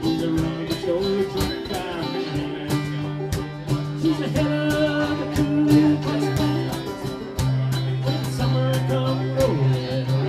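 Live blues band playing, with guitars and a cigar box guitar over a steady strummed rhythm and some bent notes.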